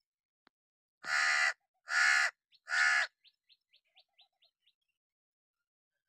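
House crow giving three loud, harsh caws about a second apart, then a quick run of faint short chirps.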